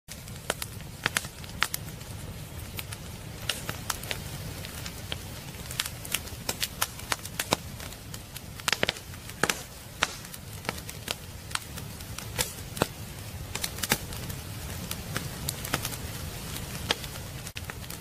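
Firewood burning in a fireplace, crackling and popping: sharp snaps at irregular intervals, sometimes several in quick succession, over a low steady rumble of the flames.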